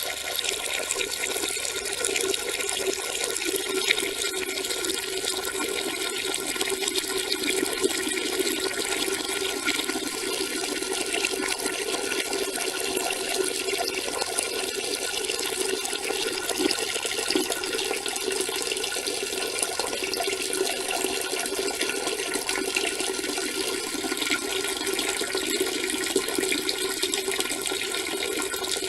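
A person urinating: a steady stream of liquid splashing into water, running on without a break.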